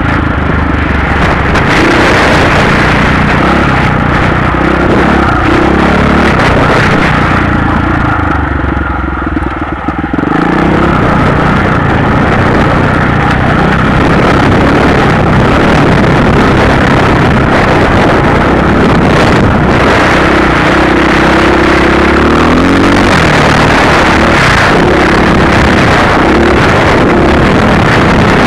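Motorcycle engine running loud as it rides over rough dirt and gravel, its note rising and falling with the throttle. It eases off briefly about eight seconds in, then pulls again.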